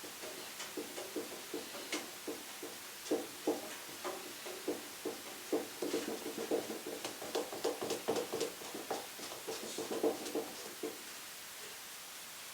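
A cleaning block scrubbed back and forth over a Trend diamond sharpening plate in quick, short, repeated strokes, stopping near the end. The scrubbing pulls metal deposits out of the diamond surface.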